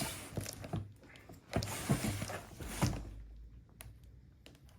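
Cardboard shipping box being handled and opened by hand: rustling and scraping in several short spells, with sharp clicks and knocks between them.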